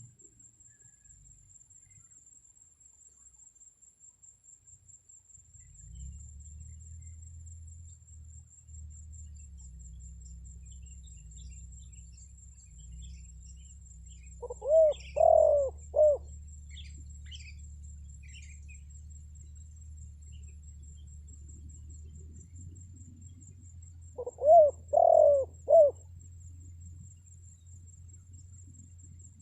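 Spotted dove (tekukur) cooing, the decoy dove's call used to lure wild doves: two phrases of three to four coos each, about ten seconds apart, over a low steady hum.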